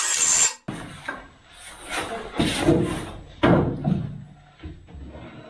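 A heavy bare V6 diesel engine block being lifted and shifted on a wooden table, giving uneven thuds and scraping, with a short loud burst at the very start.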